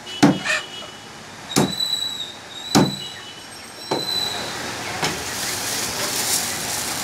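Meat cleaver chopping chicken into small pieces on a wooden chopping block: five sharp chops about a second apart, the last two weaker.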